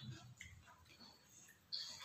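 Faint eating and table-handling sounds: small scattered clicks, with one short, sharper sound near the end.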